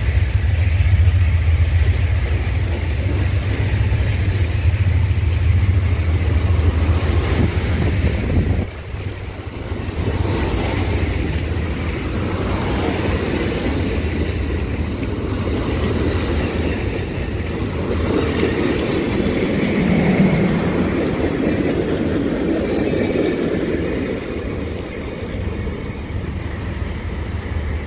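Diesel-hauled passenger train moving through the station. A strong low hum for about the first eight seconds drops away suddenly, then the steady rumble of the cars rolling past continues.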